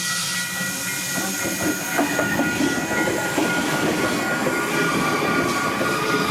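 A Sydney Trains Waratah A-set electric train passing close by over a level crossing, its wheels clattering on the rails, with the crossing's Western-Cullen-Hayes electronic bells sounding steadily over it.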